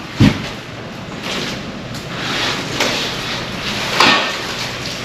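A dull thud, then scraping and knocking as a heavy box and other items are shifted around, with a sharp knock near the end.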